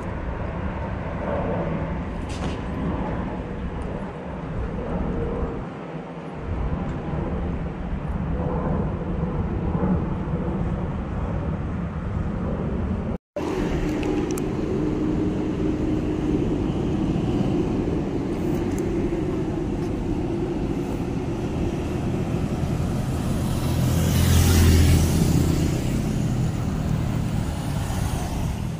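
Steady road traffic on a busy multi-lane city avenue, cars and engines passing. It drops out for an instant about halfway through, and near the end a vehicle passes close, the loudest moment.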